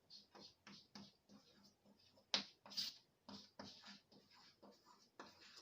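Faint hand-writing sounds: a run of short, scratchy strokes, several a second, with two louder strokes about halfway through, as the worked calculation is written out.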